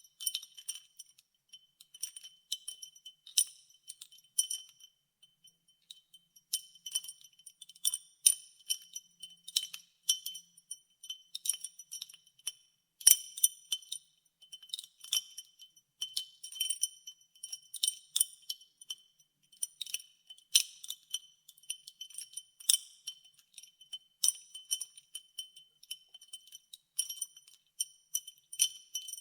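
Ice cubes stirred in a glass of water, clinking against the glass in quick irregular runs of strikes, each ringing briefly at a high pitch. One sharper, louder knock comes about halfway through.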